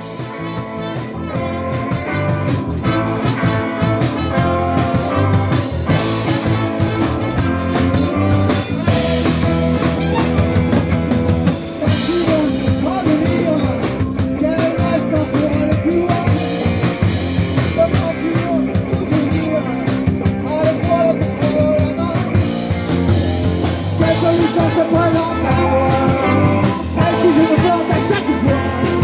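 Live amplified band music: drum kit, electric bass, electric guitar, keyboards and trumpet playing together, with a wavering melody line over the band. The music fades up over the first couple of seconds.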